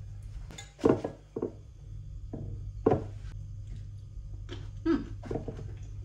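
A glass food container being handled on a kitchen counter and filled with green grapes: a handful of short knocks and clunks, the loudest about a second and about three seconds in.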